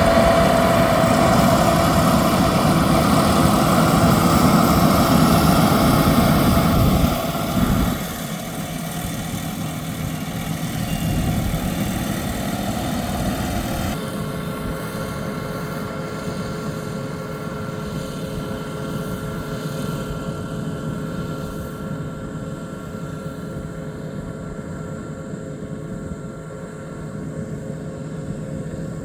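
Yanmar YH6115 six-row combine harvester running while harvesting rice: a steady engine drone with a higher steady whine. It drops in level about seven seconds in, again about halfway through, then slowly fades.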